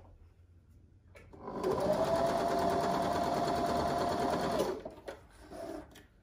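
Domestic electric sewing machine stitching a short patchwork seam: one steady run of about three seconds that starts about a second and a half in and stops abruptly, followed by a few faint clicks of the fabric being handled.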